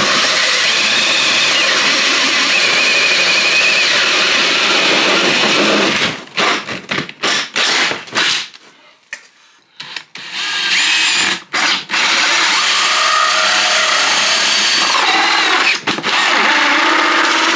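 DeWalt cordless drill driving a hole saw through a plastic ATV rack cover. It runs steadily for about six seconds, is started and stopped in short bursts for several seconds, then runs steadily again to the end.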